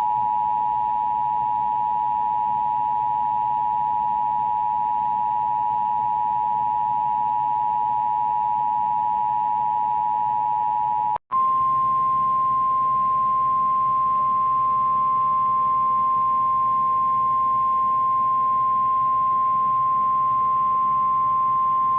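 Emergency Alert System attention signal, made with a tone generator: a steady two-tone sine chord (853 and 960 Hz) held for about 11 seconds. After a brief break it gives way to a single steady, slightly higher tone, the 1050 Hz weather-radio alert tone.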